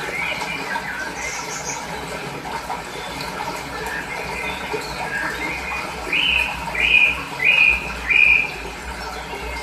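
Steady running water with birds chirping over it. About six seconds in, one bird gives four loud, short calls in a row, each falling slightly in pitch.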